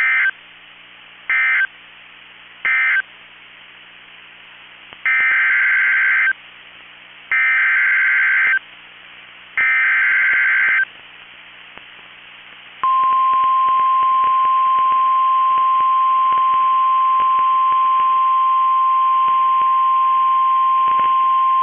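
NOAA Weather Radio EAS/SAME data tones. Three short buzzy bursts mark the end of the previous message, then three longer bursts carry the header of the next alert. About 13 seconds in, the steady 1050 Hz warning alarm tone begins and holds until the end, signalling a new severe thunderstorm warning.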